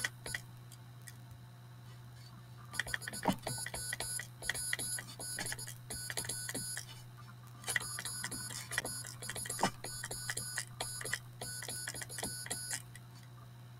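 Homemade relay-based code practice oscillator buzzing out Morse code, keyed by a homemade clothespin straight key: groups of short and long harsh, buzzy tones with clicks from the key. The tones start about three seconds in, pause briefly about halfway, and stop shortly before the end.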